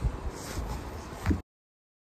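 Low background noise with a few soft thumps that cuts off abruptly to dead silence about one and a half seconds in.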